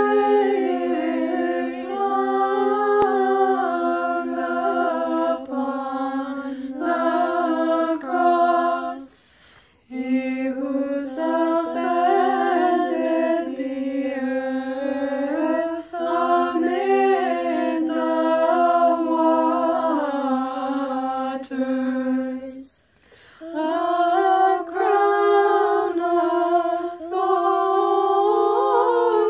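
Byzantine chant of a Holy Thursday antiphon sung a cappella by a few young voices: a melody moving over a steady held drone note, the ison. The singing breaks off briefly twice, about nine seconds in and again about twenty-three seconds in, and the drone comes back on a higher note after the second break.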